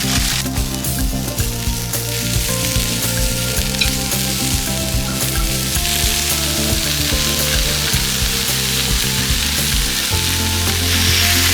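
Food frying in a hot pan with a steady sizzle, under background music.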